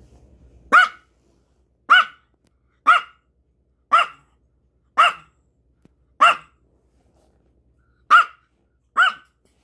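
Small white dog giving eight short, sharp barks about a second apart, with a longer pause near the end, directed at its owner in a provoking, demanding way.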